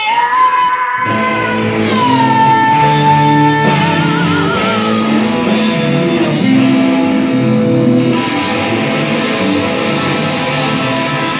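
Live band playing: electric guitars, bass guitar and drums, with a long held high note over the top. The low bass and drum parts come in about a second in.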